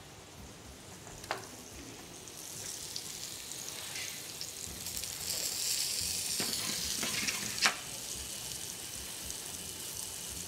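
Mushrooms sizzling in a frying pan over high heat, searing and browning rather than stewing, with a few sharp knocks as the pan is worked. The sizzle grows louder from about two seconds in.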